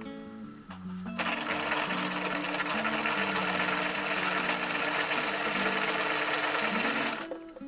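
Domestic sewing machine running steadily, stitching a small zigzag through fleece and a doubled elastic loop, going back and forth to backtack the elastic firmly in place. It starts about a second in and stops just before the end, over soft guitar background music.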